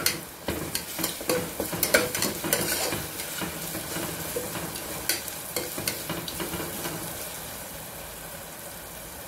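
Onions, whole spices and ginger-garlic paste sizzling in oil in a pressure cooker pot, with a slotted spatula scraping and clicking against the pot as they are stirred. The stirring strikes thin out after about six seconds while the frying sizzle carries on.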